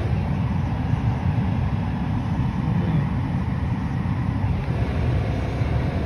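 A vehicle's engine running with a steady low rumble, heard from inside the cab.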